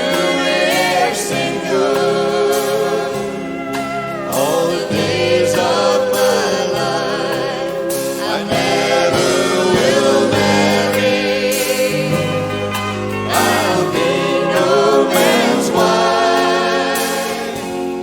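Country band playing live: sung vocals in harmony, with long wavering held notes, over a steady backing of guitars, bass, piano and drums.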